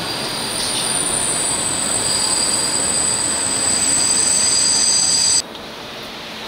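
Railway wheels squealing in a large station hall: a steady high-pitched metallic squeal in two tones over a loud rushing noise. It grows a little louder, then cuts off suddenly about five seconds in.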